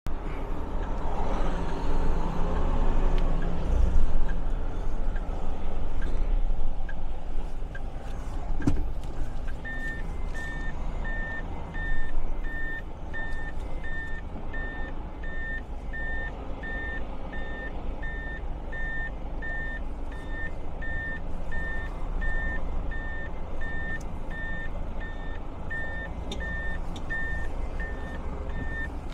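A tractor-trailer's reversing alarm beeping: a steady train of short, even, high-pitched beeps that starts about ten seconds in, when the truck goes into reverse. Under it the truck's engine rumbles, heard from inside the cab, with a sharp click just before the beeping begins.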